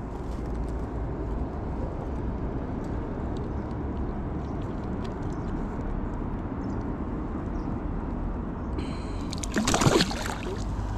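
Water sloshing and gurgling at the riverbank as a hooked pike is handled in the shallows. A loud splash near the end as the pike thrashes while being gripped under the chin by hand.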